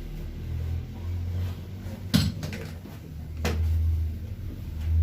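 Two sharp knocks about a second and a half apart over a low steady hum, from a patient getting onto and settling on a chiropractic treatment table.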